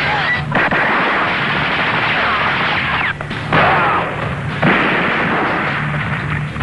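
Action-film battle sound effects: gunfire and explosions in a dense, continuous din, with fresh blasts about three and a half and about four and a half seconds in.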